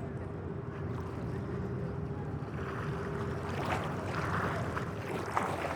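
Steady low rumbling ambient noise with a faint steady hum. A brighter hiss and a few faint clicks join about halfway through.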